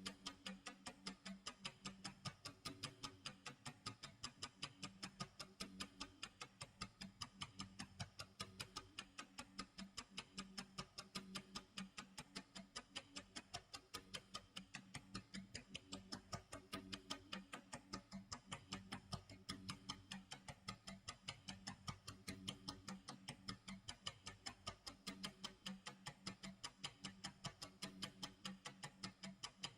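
Clock tick-tock sound effect: an even, unbroken train of sharp ticks.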